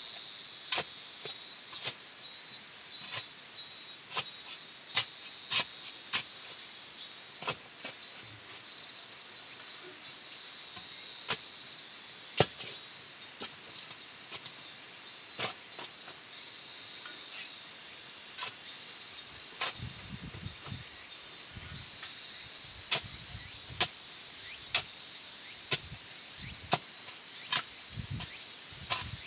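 Crickets chirping in a steady pulsing chorus, with sharp knocks repeating about once a second over it.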